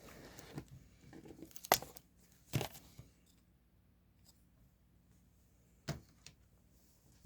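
Stationery being handled on a desk during diary decorating: a brief rustle, then a handful of sharp clicks and taps of small items being set down, the loudest about two seconds in.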